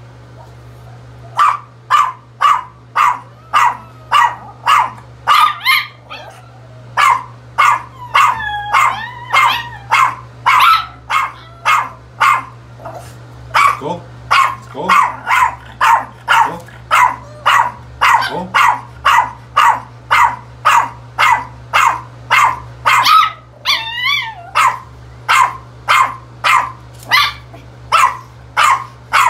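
A Yorkshire terrier barking over and over, about two sharp barks a second, with a few higher, wavering yips mixed in.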